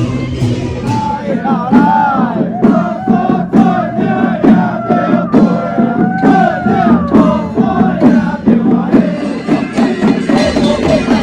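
Temple procession music: a high, gliding melody line over steady, evenly spaced drum and cymbal beats. The melody fades out about eight seconds in while the beat goes on.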